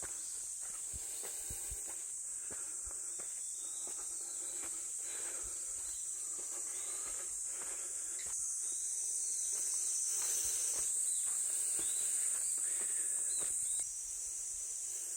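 Steady high-pitched insect chorus, with scattered light clicks and rustles of footsteps in undergrowth. The chorus swells about eight seconds in and drops back abruptly near the end.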